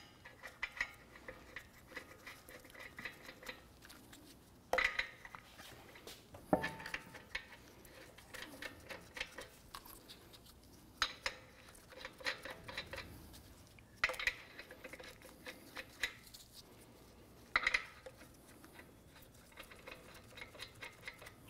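Lug nuts being threaded by hand onto the wheel studs of an alloy wheel: light metallic clinks and rattles, with a sharper clink every few seconds.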